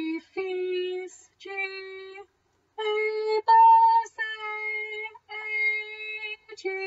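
A woman's voice singing a solfège sight-singing exercise unaccompanied: a run of about seven held notes, each with a short break, with the loudest and highest note about halfway through.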